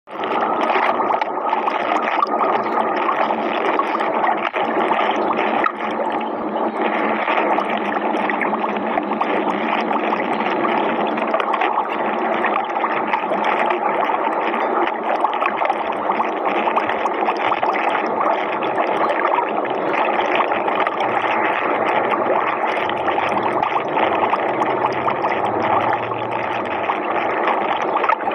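Underwater water-noise sound effect: a steady rushing with no breaks or sudden events.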